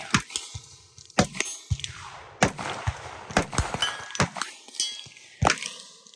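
A series of sharp metallic clangs and rings, about a dozen in irregular succession.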